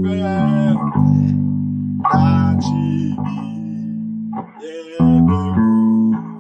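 Bass guitar playing a short melodic phrase of plucked notes, each held and ringing before the next, with the notes changing every half second to a second. It briefly drops away about four and a half seconds in before the last few quicker notes.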